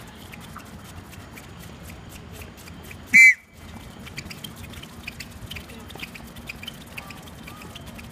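Quick, steady patter of many tennis shoes on a hard court as a group does a fast footwork drill, with one loud, short, high-pitched squeal about three seconds in.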